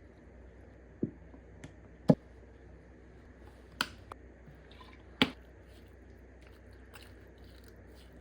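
A handful of scattered sharp clicks and knocks, the loudest about two seconds in, over a low steady hum.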